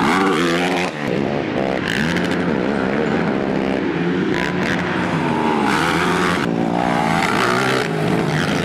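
ATV engine revving, its pitch rising and falling repeatedly.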